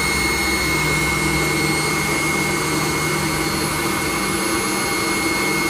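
Cabin noise inside a McDonnell Douglas MD-90 taxiing at low power: a steady rush from its rear-mounted jet engines with a high steady whine. A low hum underneath fades out about four seconds in.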